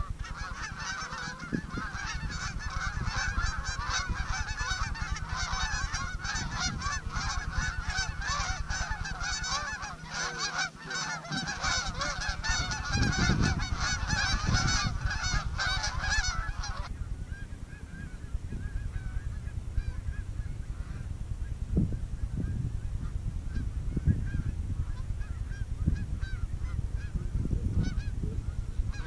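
A large flock of geese honking in a dense chorus that cuts off abruptly a little past halfway, leaving fainter scattered calls. Low wind rumble on the microphone underneath.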